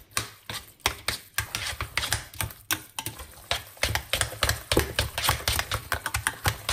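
A spoon stirring ricotta and pesto in a bowl, clicking against the bowl in quick repeated taps, several a second and busier in the second half.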